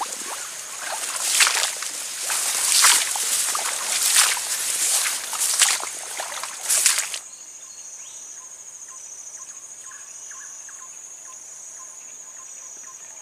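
Grass and leafy plants rustling and swishing in loud, irregular bursts for about seven seconds. Then a sudden cut to steady forest ambience with an even, high insect drone.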